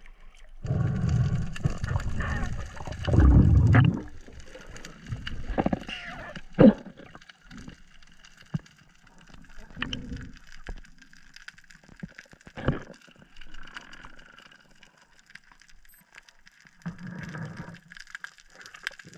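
Water rushing and gurgling over a head-mounted action camera's housing as a spearfisher duck-dives from the surface, then muffled underwater sound: a faint steady hiss with scattered clicks and a few sharp knocks, the loudest about six and a half seconds in.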